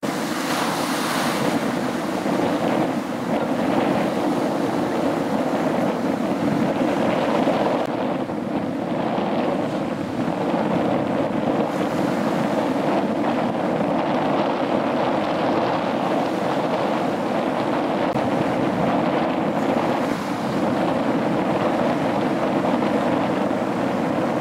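Ocean surf breaking and washing up a sand beach, a steady rushing sound with gentle swells, mixed with wind buffeting the microphone.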